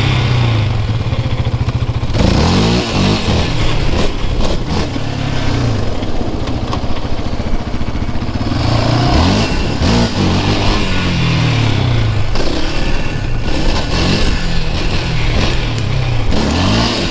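Yamaha Banshee 350's two-stroke twin engine revving up and down repeatedly while being ridden, its pitch rising and falling every second or two.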